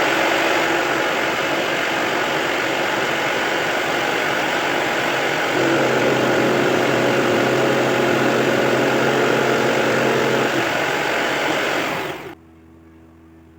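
An electric power tool's motor running steadily, growing louder and lower in tone about six seconds in, then shutting off abruptly near the end, leaving a faint hum.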